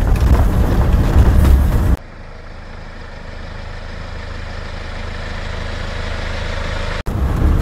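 A vehicle driving on a gravel road, its engine and tyres making a heavy rumble for about two seconds. The sound then cuts abruptly to a quieter, steady engine idle that slowly grows louder.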